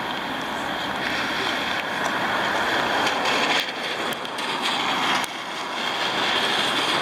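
Road traffic on a wet road: a steady hiss of tyres on the wet surface that swells and fades as vehicles go by.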